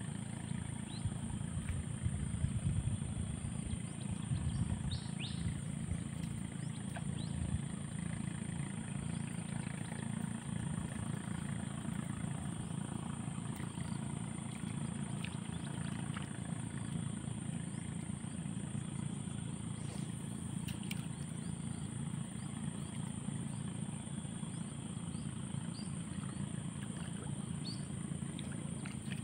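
Outdoor ambience: a steady low rumble, a constant high-pitched drone and a few short faint chirps.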